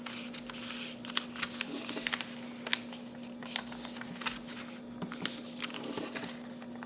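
A square of printer paper being handled and pressed into folds: scattered light crackles and taps, over a faint steady hum.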